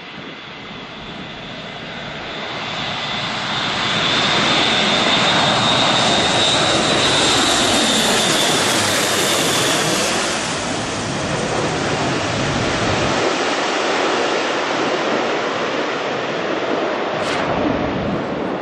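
Airbus A400M Atlas's four TP400 turboprops on a low landing approach: the propellers drone and a high turbine whine builds over the first few seconds as the aircraft comes overhead. The pitch falls away as it passes.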